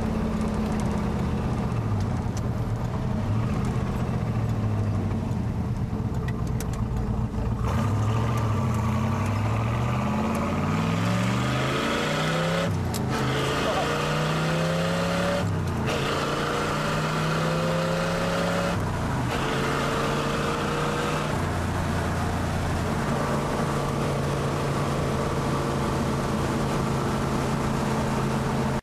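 Stock 1965 Corvette coupe's 327 cubic-inch, 350 hp small-block V8, heard from inside the cabin on the move. Through the middle the engine note climbs under acceleration, with three upshifts, each a brief break followed by a drop and a fresh climb in pitch. It then settles into a steady cruise.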